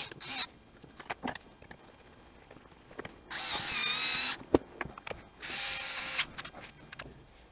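Cordless drill-driver running in two main bursts, about a second long and then well under a second, with a steady motor whine, driving screws back into the trimmer's housing. Small clicks and knocks of parts being handled come between the bursts.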